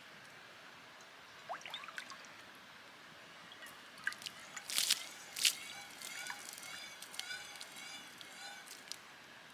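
Water sloshing and trickling in a gold pan as gritty waterfall sediment is swirled and washed, with a cluster of sharp splashes and gravel clicks about halfway through.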